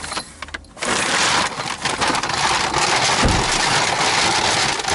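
A shopping bag rustling and crinkling as purchases are rummaged through and pulled out, with a dull thump about three seconds in.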